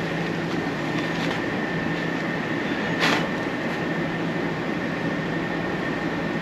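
Steady mechanical hum with a low drone and a faint high whine, broken by one short tap about three seconds in.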